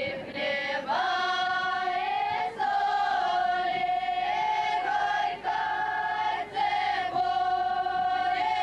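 Choir of girls' and women's voices singing a Russian folk song, high notes held long in phrases broken by short breaks.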